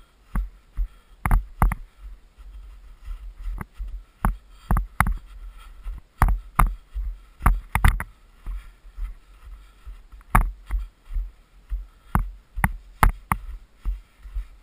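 Footsteps crunching in packed snow, irregular steps about one to two a second, some in quick pairs, over a low rumble on the microphone.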